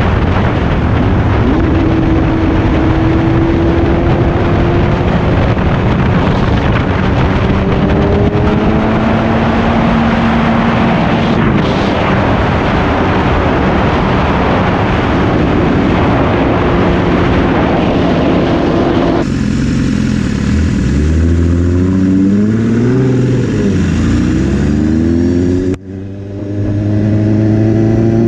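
BMW S1000RR inline-four through an Austin Racing exhaust, riding at speed under a loud rush of wind noise, with the engine pitch stepping up through gear changes. About two-thirds of the way in the wind drops away and the engine is heard clearly, revving up and down several times; near the end it cuts out briefly and then revs up again.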